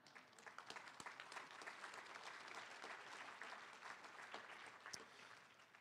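Audience applauding: many hands clapping in a dense, even spread that dies away near the end.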